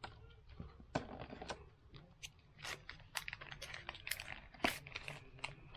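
Foil wrapper of a Pokémon card booster pack crinkling in the hands as it is opened and handled, a run of scattered small crackles and rustles.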